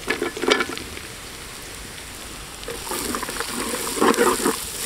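Chopped garlic dropped into hot oil with sautéed onions and green chillies in a large metal pot, the oil sizzling. From about three seconds in, a flat spatula scrapes and stirs the mix against the pot.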